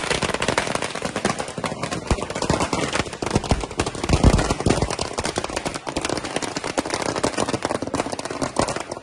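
A long string of firecrackers going off in rapid, continuous crackling bangs, with a louder bang about four seconds in.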